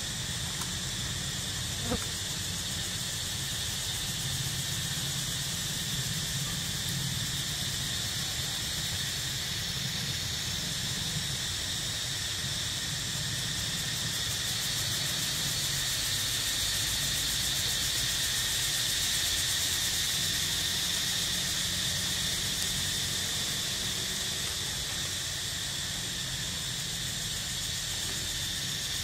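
Steady, high-pitched drone of insects, swelling a little midway, over a low steady rumble; a single short click about two seconds in.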